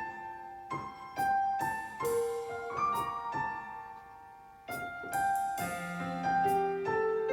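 Yamaha Electone electronic organ played with a piano voice: a passage of struck notes that ring and fade. The notes thin out and soften in the middle, then come back fuller about four and a half seconds in.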